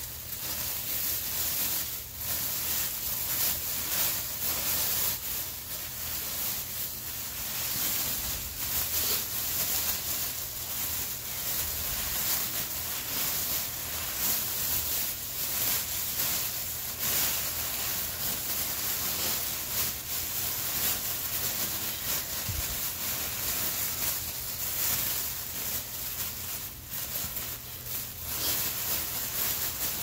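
Thin clear plastic bag crinkling and rustling continuously as hands handle it, with many small sharp crackles.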